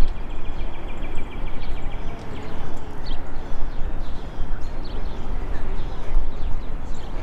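Small birds chirping and trilling, with a steady low rumble underneath that is the loudest part of the sound.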